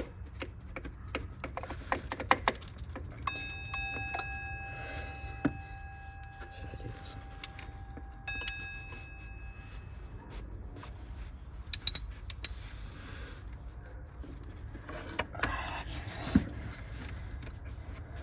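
Hand ratchet clicking and metal tools clinking as the water pump bolts are loosened. A steady ringing tone holds for several seconds partway through, and there is a sharp knock near the end, over a low steady hum.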